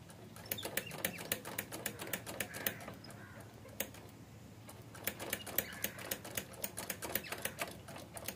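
Rapid, irregular clicking in two runs of a few seconds each, from hand work on a motorcycle's rear brake caliper and pedal during brake bleeding.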